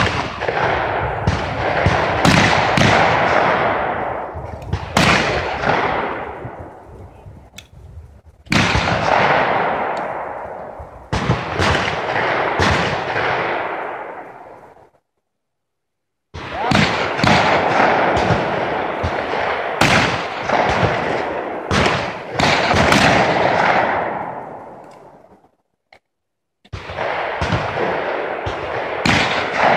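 Shotguns firing at clay targets from several stands, many shots in irregular succession, each followed by a long rolling echo. The sound cuts out suddenly twice, briefly.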